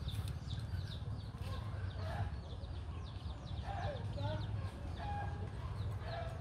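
Backyard chickens clucking now and then, with a steady stream of quick, high, falling chirps from chicks or small birds, over a low steady hum.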